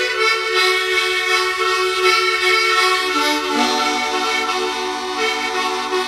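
Harmonica playing long, held chords, moving to a lower chord about three and a half seconds in.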